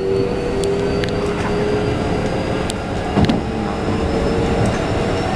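Keikyu 1500-series commuter train running, heard from inside the car: rumble of the wheels on the rails under a steady whine from the motors, which shifts slightly in pitch about two seconds in. A single knock about three seconds in.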